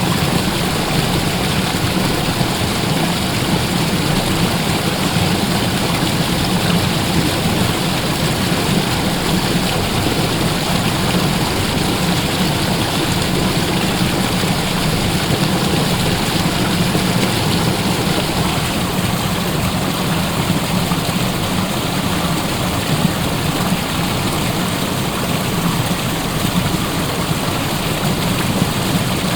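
Waterfall: a loud, steady rush of falling water with no break or change.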